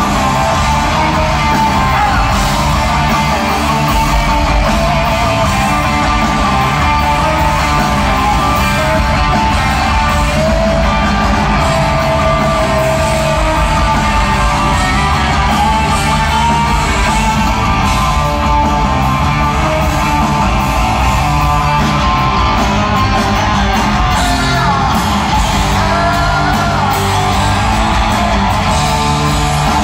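Live rock band playing, with electric guitars, drums and a man singing over them, recorded loud from the audience in a large hall.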